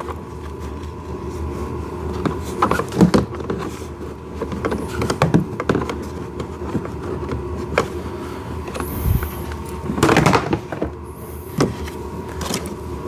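Plastic parts of a kids' ride-on car being handled during assembly: irregular knocks, clicks and rustles as the front bumper is fitted to the upturned body, with a louder clatter about ten seconds in, over a steady faint hum.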